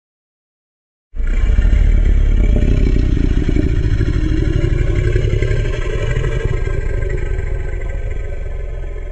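Sound-effect growl of a custom giant monster: a deep, grinding rumble that starts suddenly about a second in and slowly fades over about eight seconds.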